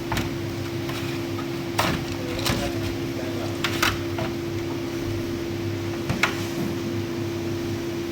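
About six sharp clicks and knocks from tools and parts being handled during car repair work, scattered through the stretch, over a steady low hum.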